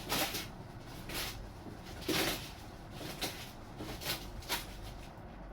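Packaging and kit parts being handled: about six short rustling, scraping bursts, the loudest about two seconds in.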